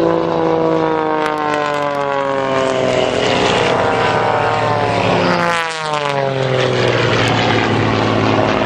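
Piston-engined aerobatic display aircraft flying past with a loud propeller drone. The engine note falls in pitch as they go by, with a quick sharp drop about five to six seconds in as one passes close.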